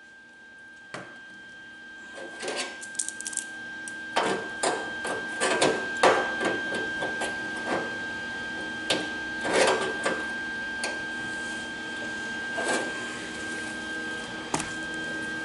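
Hand tools clicking, rattling and knocking against a sheet-steel car door as a gloved hand works over it, heaviest around the middle. A faint steady high whine sits underneath.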